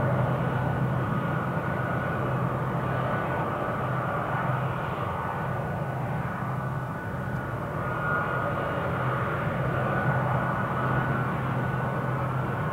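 Boeing C-17A Globemaster III's four Pratt & Whitney F117-PW-100 turbofans idling while the aircraft holds short of the runway: a steady jet whine over a low hum.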